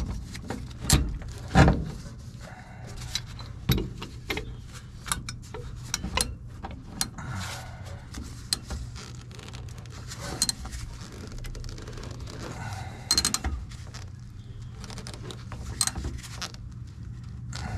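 Ratchet, socket and wrench clicking and clinking on a bolt under a pickup truck, in irregular metal knocks, two sharp ones in the first two seconds. The bolt turns with the tool rather than coming loose. A steady low hum runs underneath.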